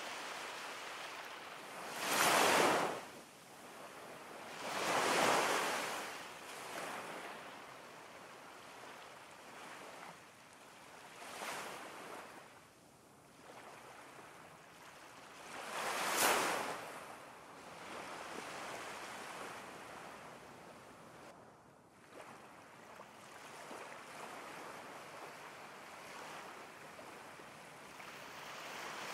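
Ocean waves crashing in a steady wash of surf, swelling and falling away every few seconds. The biggest breaks come about two, five and sixteen seconds in.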